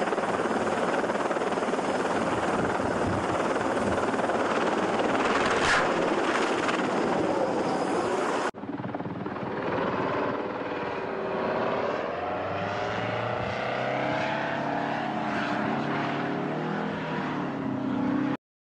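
A helicopter's rotor and turbine, a steady dense rush. About eight seconds in it cuts abruptly to a tiltrotor aircraft's engines and proprotors, their pitch wavering up and down.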